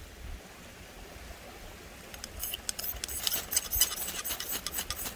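Carbon steel blade of an Opinel No. 8 folding knife shaving thin curls off a stick to make a feather stick. A quick run of short scraping strokes starts about two seconds in.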